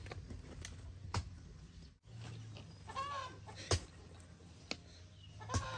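Farmyard poultry clucking, with one short call about three seconds in, over a low steady hum and a few sharp clicks.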